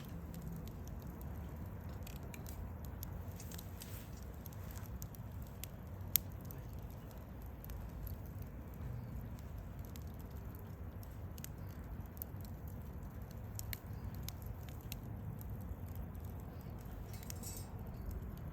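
Wood campfire burning, crackling with scattered small pops over a low steady rumble of flame, with one sharper snap about six seconds in.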